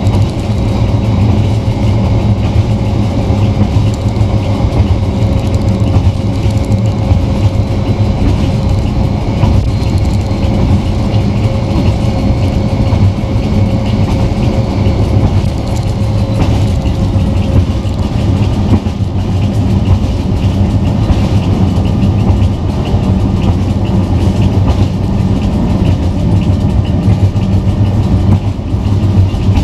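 Inside the cab of a Czech class 754 diesel locomotive under way: the diesel engine runs with a steady low drone under the noise of the wheels on the track. A faint steady whine fades out about halfway through.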